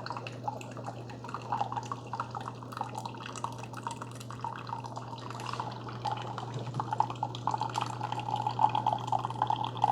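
Keurig K-Supreme Plus single-serve brewer dispensing hot water through a tea pod: liquid streams and drips into a mug over a steady low hum from the machine.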